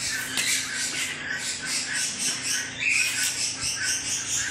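Mixed aviary birds chattering and chirping continuously, with high chirps repeating several times a second.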